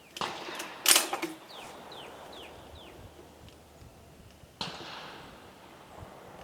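Metallic clicks and clacks of a Vetterli bolt-action rifle being handled, loudest about a second in. A bird chirps four short falling notes between about one and a half and three seconds in, and a sharp knock with a short fading tail comes about four and a half seconds in.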